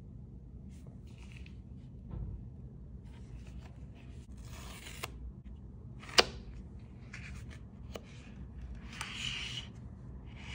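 Gloved hands unboxing an Apple clear phone case: short scrapes and rustles of the packaging, with a sharp click about six seconds in and a few fainter clicks.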